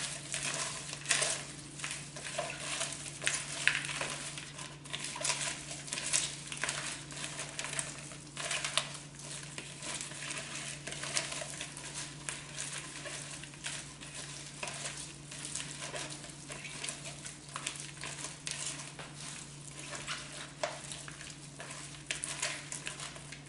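Gloved hands tossing raw shrimp with salt and seasonings in a plastic bowl: irregular wet crackling and rustling of the shrimp against the bowl, over a steady low hum.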